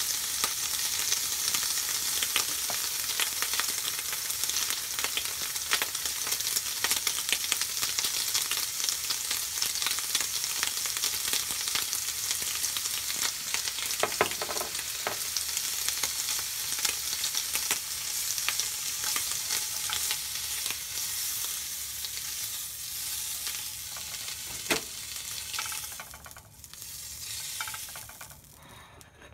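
Bacon sizzling in a frying pan, a steady hiss full of fine crackles and spits. The sizzle dies down sharply near the end.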